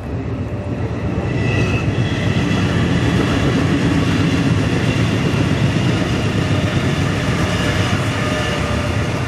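Sydney Trains Waratah double-deck electric train passing at speed: wheels rumbling on the rails under a steady high electric whine. It grows louder about a second in as the carriages come by.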